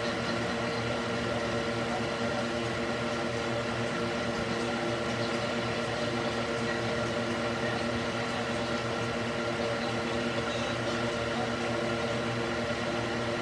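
Electric cooling fan mounted in a wooden box, running steadily: a constant rush of air over a steady motor hum.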